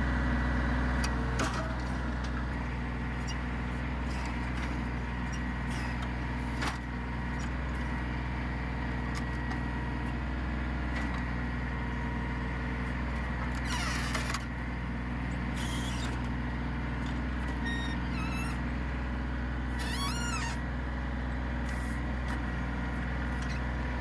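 Kubota L3010 tractor's three-cylinder diesel engine running steadily under load while its backhoe digs out a tree stump. Scattered knocks of the bucket in roots and soil, short hisses, and a brief rising squeal about twenty seconds in.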